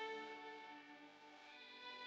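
Quiet background music of held notes, several at once, changing now and then.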